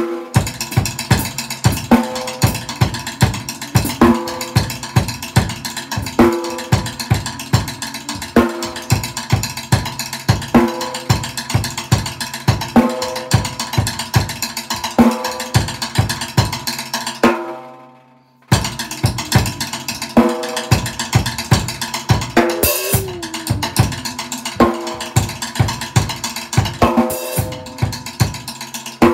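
Acoustic drum kit played in a steady groove of kick, snare and toms under cymbals, the pattern coming round about every two seconds. Just past halfway the playing fades almost to silence for about a second, then comes straight back in, with two cymbal crashes in the last third.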